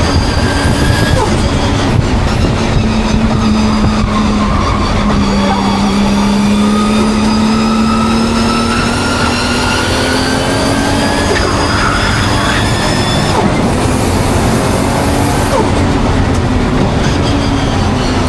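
Nissan Skyline's engine running continuously while lapping a race track, its pitch dipping and then climbing as the revs fall and rise. The engine is misfiring.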